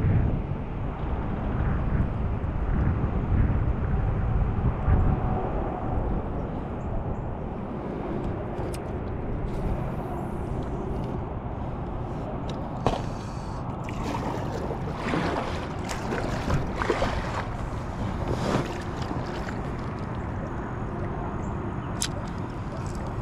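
Wind rumbling on the microphone, heaviest in the first few seconds, over water sloshing, with a few short swishing sounds past the middle and a single click near the end.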